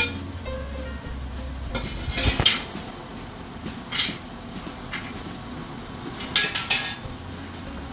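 Cookware clinking: a frying pan and a spoon knocking against a steel cooking pot, in a few short clinks about two, four and six and a half seconds in, over a low steady hum.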